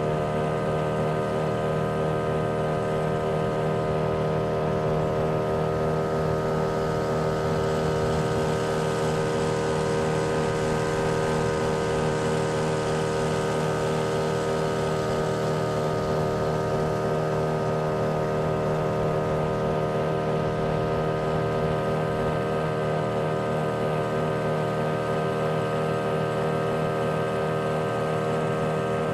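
Motorboat engine running at a steady speed while the boat is under way, its pitch unchanging throughout.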